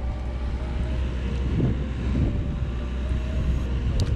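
Wind buffeting the microphone, a steady low rumble.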